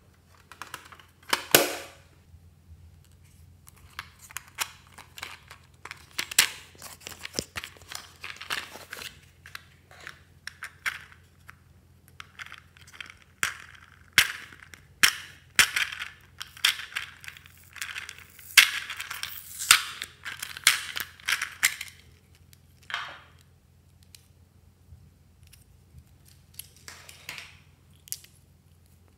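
Small plastic items handled close up: a short rattle of sequins tipped out of a plastic pencil case about a second and a half in, then scattered sharp clicks and bursts of rattling as a pink plastic case of mini lipsticks is opened and the lipsticks are pulled out.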